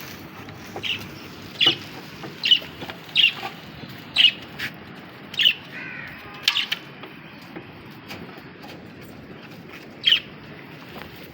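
Birds calling: short, sharp chirps and squawks, about nine of them at irregular intervals, over a steady low background noise.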